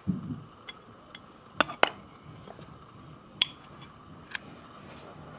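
Handling of a metal pocket watch case with its back lid open: a soft bump at the start, then a handful of sharp, irregularly spaced metallic clicks and clinks, the loudest pair about two seconds in.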